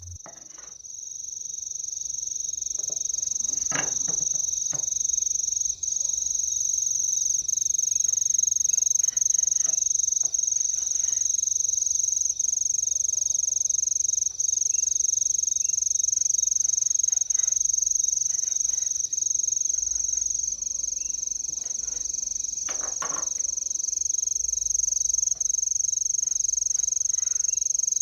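Steady, high-pitched insect chorus, cricket-like, fading in over the first two seconds and then holding. Faint knife cuts and taps on a chopping board come and go beneath it, slightly stronger at about 4 seconds and at about 23 seconds.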